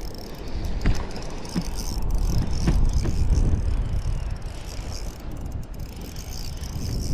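Fishing reel being cranked to bring in a hooked bass, with light mechanical clicks and a whirr. Wind rumbles on the microphone underneath.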